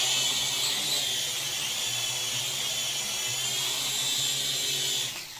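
HR SH5W toy quadcopter's four small electric motors and propellers spinning at high speed: a high-pitched whine that rises as they spin up, holds steady, then cuts off about five seconds in.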